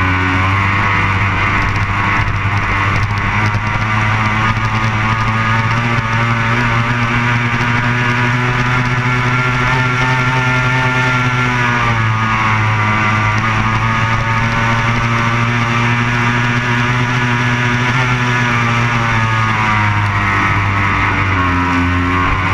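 Racing powerboat's engine running hard at speed. Its note dips briefly and climbs again about twelve seconds in and once more near the end, as the throttle is eased and reopened.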